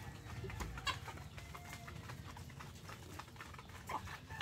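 Faint clucking of hens, with a short louder cluck about four seconds in, over small clicks and rustles of eggs being picked up from dry bedding in a wooden nest box.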